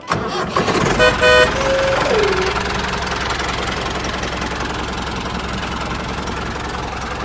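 A vehicle horn toots briefly about a second in, then a tone slides down in pitch, over a steady motor running noise that starts suddenly and carries on.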